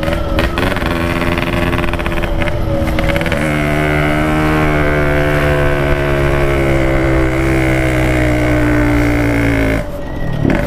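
Yamaha RX-King's 135 cc two-stroke single-cylinder engine running hard at steady revs under load on an uphill climb. Its tone shifts about three and a half seconds in, and the level dips briefly near the end.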